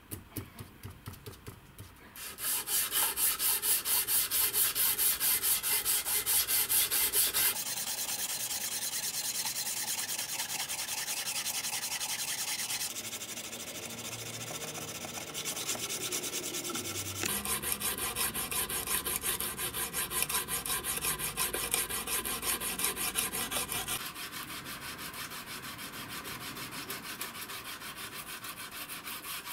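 Abrasive paper wrapped on a small block rubbed back and forth along a steel knife blade by hand, in quick, even scraping strokes: hand-sanding the flat of the blade to a finish. The strokes get much louder about two seconds in, and their loudness shifts a few more times after that.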